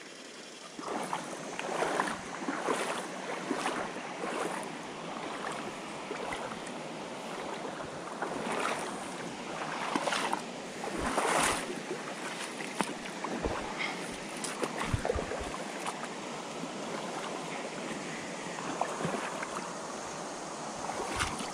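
Shallow, rocky river water splashing in irregular surges as someone wades through it, over the steady rush of the current.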